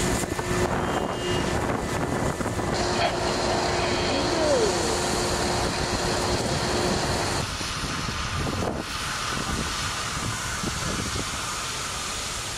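Steady rushing noise of firefighting at a boat fire: fire-engine pumps running and hoses spraying water on the burning boats. About seven and a half seconds in, the sound changes and gets a little quieter.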